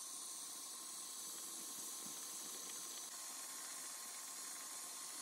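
Saucepan of water with potato and carrot chunks at a hard rolling boil on a gas burner: a steady, even hiss of boiling.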